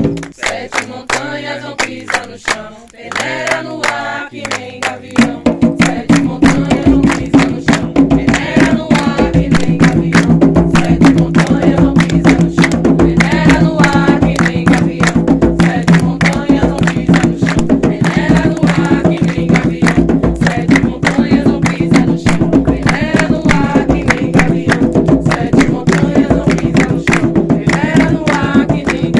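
Umbanda ponto: a group of voices singing over fast, steady hand-drumming on atabaques. The drumming and singing swell to full strength about five seconds in.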